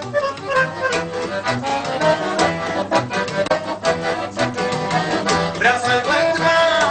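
Piano accordion playing Romanian lăutărească folk music: a melody over chords with a regular bass beat.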